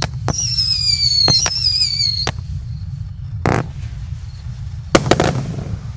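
A 36-shot firework cake firing its last shots. A high whistle falls slowly in pitch over sharp bangs during the first two seconds. A single burst follows, then the loudest burst with crackling about five seconds in.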